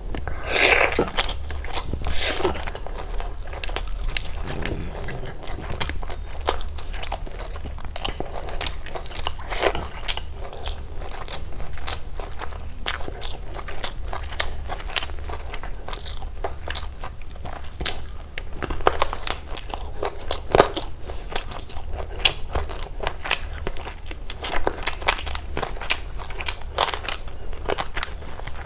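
Close-miked eating of chicken biryani and egg curry: steady chewing and biting with many sharp crunches and wet mouth clicks, a few crunches louder than the rest.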